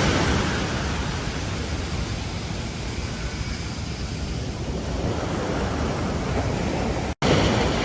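Ocean surf on a beach: after a wave breaks, the water washes back with a steady hiss and low rumble, fading, then swelling again near the end. The sound cuts out for an instant about seven seconds in.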